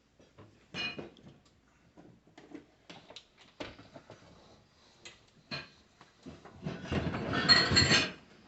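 Dishwasher parts being handled during reassembly: scattered plastic clicks and knocks, then a louder rattling scrape lasting over a second near the end.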